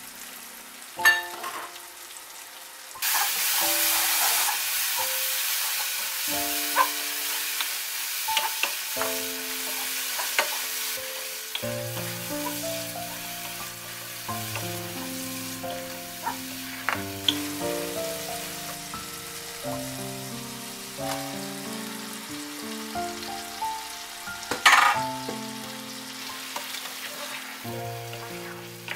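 Onion-tomato curry masala frying and sizzling in a pot as a wooden spoon stirs it, the sizzle starting about three seconds in, with a few sharp knocks of the spoon against the pot, the loudest a little before the end. Background music with a slow stepping melody plays throughout.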